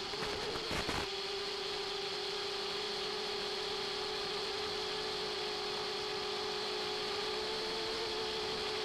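Steady hiss with a constant buzzing tone from the audio channel of an analog 5.8 GHz FPV video receiver, with a brief burst of crackle about a second in.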